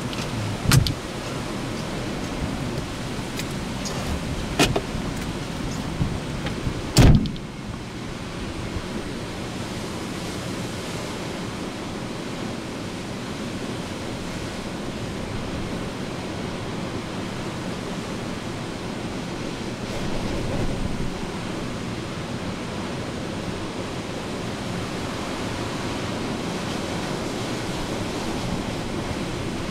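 Hurricane wind and rain, a steady rushing noise, with a few sharp knocks in the first seven seconds, the loudest about seven seconds in.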